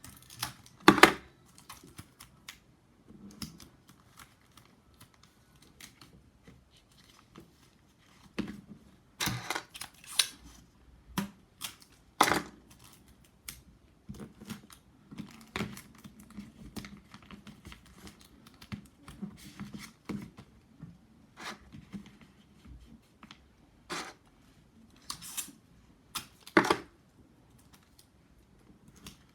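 Paper and tape being handled in crafting work: irregular rustles, snips and sharp clicks, with louder ones about a second in, a cluster around a third of the way through, and one near the end.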